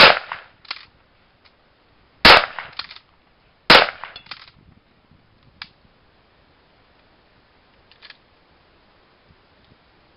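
Three blasts from a 12-gauge pump-action shotgun: the first right at the start, the second about two seconds later, the third about a second and a half after that. Each is followed by a brief echoing rattle. After that come only a few faint clicks.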